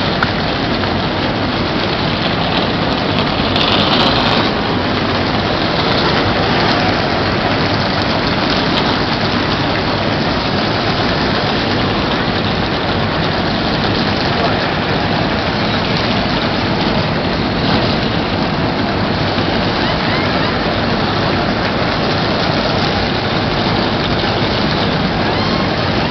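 A full field of NASCAR stock cars' V8 engines running together on pit road, heard from the grandstand as a loud, steady, dense wash of engine noise.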